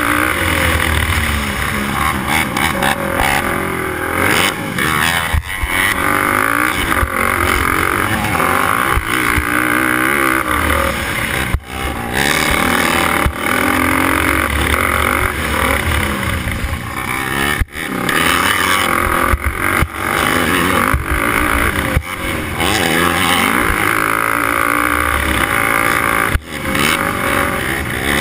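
Sport quad (racing ATV) engine at race throttle, heard close on board, its pitch rising and falling as it revs through the gears. The engine note drops briefly a few times.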